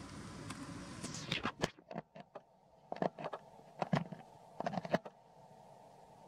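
Dry crackling and scraping in several short clusters, from a baby macaque's hand working at tree bark.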